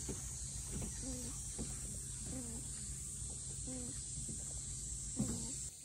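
A cat mewing in short, repeated calls, roughly one a second, over a steady low hum.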